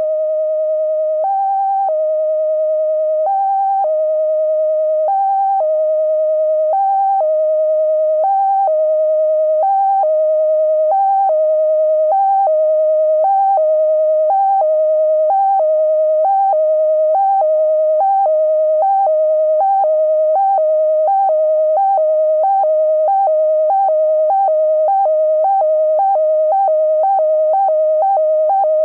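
Vintage sci-fi spaceship malfunction sound effect: a synthesized electronic tone with a slight wobble that flips back and forth between two close pitches. The flipping starts slow and speeds up steadily.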